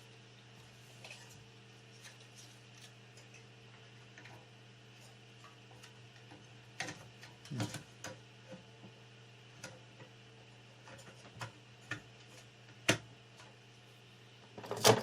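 Scattered light clicks and knocks of monitor parts being handled and fitted back together during reassembly, over a steady low electrical hum.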